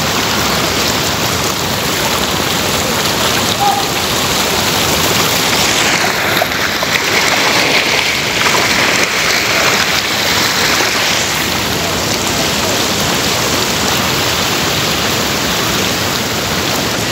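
Floodwater rushing and churning: a loud, steady noise of water.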